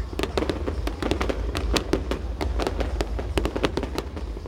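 Fireworks display: a rapid, irregular string of sharp crackling reports, many a second, that thins out near the end.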